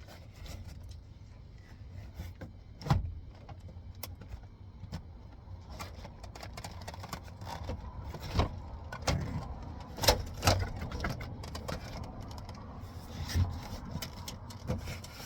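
Scattered knocks, clicks and scrapes of hands and tools working on a truck's door panel, a few sharper knocks standing out over a low steady rumble.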